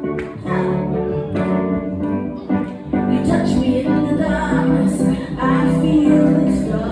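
Live pop music: a woman singing lead over instrumental backing.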